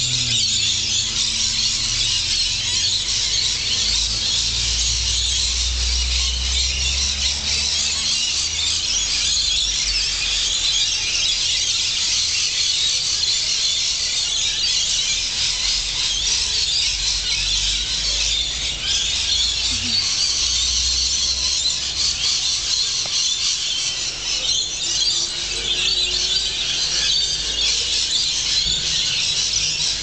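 A flock of wild parrots screeching and chattering in a treetop: a dense, unbroken din of shrill calls.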